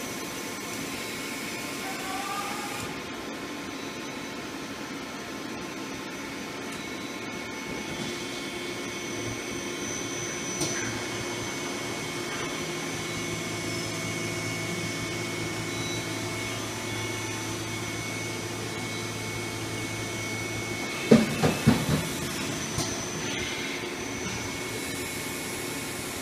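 1997 Nakamura-Tome TW-10MM CNC lathe running with coolant spraying: a steady mechanical whir with a high whine. A low hum joins about twelve seconds in, and a quick cluster of sharp metallic clunks comes about 21 seconds in.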